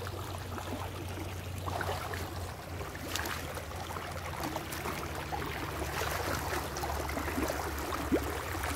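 Shallow stream running and trickling over rocks, with scattered splashes as someone wades barefoot through the water.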